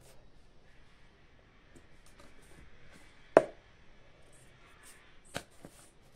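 Faint scratching of a pen writing on paper, with two sharp knocks, a loud one about three and a half seconds in and a softer one about two seconds later.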